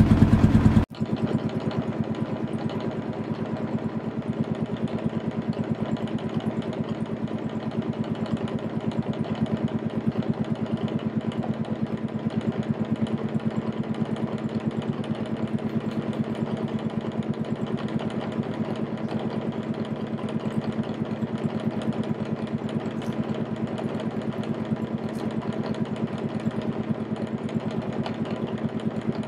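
Boat engine running steadily at a constant speed, heard from on board. A louder, deeper stretch of sound cuts off abruptly about a second in.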